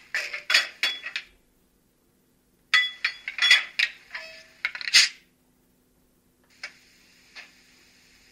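Coupling and uncoupling sound effect from the ESU sound decoder in a Jägerndorfer H0 model of the ÖBB class 2068 diesel locomotive, played through the model's small loudspeaker. Two bursts of metallic clanking and rattling come, one right at the start and one from about three to five seconds in. A faint steady hiss with a couple of soft clicks follows.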